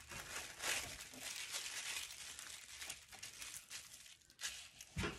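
Thin sewing-pattern tissue paper rustling and crinkling as it is folded over by hand and smoothed flat, in irregular crackly bursts.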